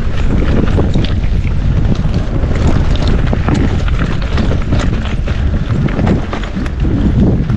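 Wind buffeting the microphone over a mountain bike rolling down a dirt trail, with frequent short clicks and rattles from the bike and the ground.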